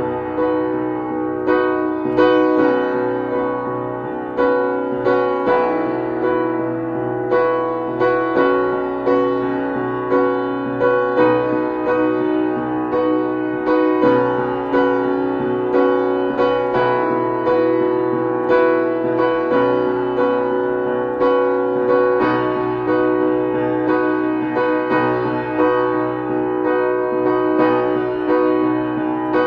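Piano music: slow chords struck about once a second and left to ring, over a low held bass.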